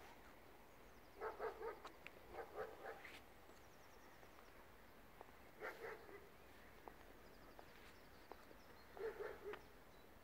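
A dog barking faintly in four short bursts of quick barks, spread across a few seconds.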